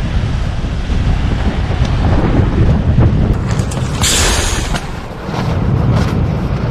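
Wind buffeting the microphone with a steady low rumble throughout. About four seconds in, a short hiss of air as the valve of an inflatable sleeping pad is pressed open to let it down, with a few faint handling clicks around it.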